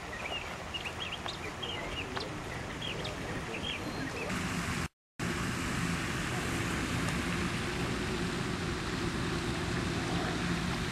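Outdoor ambience: small birds chirping over a background rush for about the first four seconds, then, after a brief dropout about five seconds in, a steady even rushing noise.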